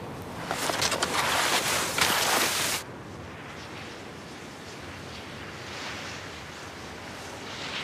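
Skis hissing and scraping over snow for about two seconds, cutting off abruptly, followed by a steady wind hiss.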